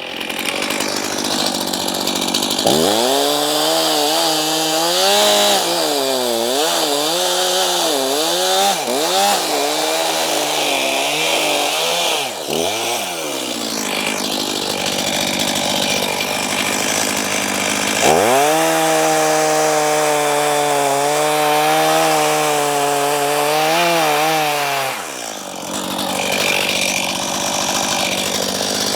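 Chainsaw running at high revs in two spells. The first lasts about ten seconds, its pitch dipping and recovering again and again. After a short lull comes a steadier spell of about seven seconds.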